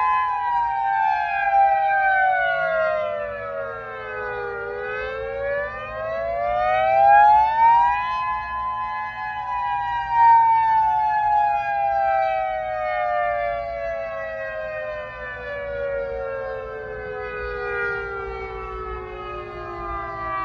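Federal Signal Modulator electronic outdoor warning siren sounding a wail: the pitch falls for about four seconds, rises again for about four, then glides slowly down for the rest of the time, with several close pitches sounding together.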